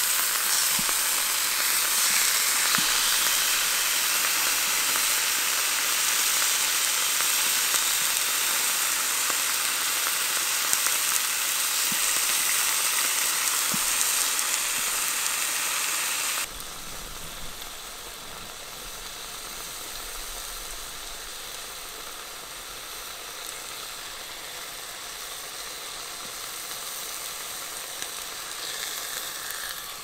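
Food frying in a pan, with a steady sizzle. A little past halfway the sizzle drops suddenly to a softer level and carries on.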